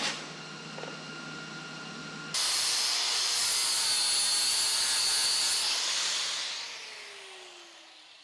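MIG welding arc sizzling steadily for about two seconds. Then an angle grinder suddenly starts grinding a weld on steel square tube, is let off about six seconds in, and winds down with a falling whine.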